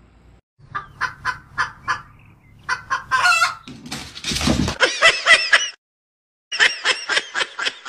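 A chicken clucking in quick runs of short calls, about three to four a second, louder and more drawn-out in the middle. The calls break off into a short silence about six seconds in, then start again.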